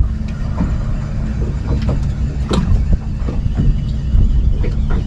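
Boat engine running with a steady low rumble, with scattered knocks and clicks, the strongest about halfway through.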